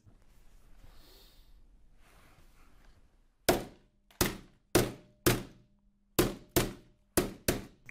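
A hammer pounding on a desk, about eight heavy blows at uneven intervals, starting about three and a half seconds in after a faint quiet stretch.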